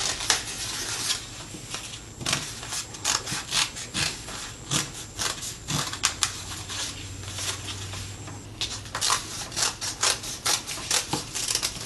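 Scissors snipping through folded paper, an irregular run of short, sharp snips a few a second, with paper rustling between them.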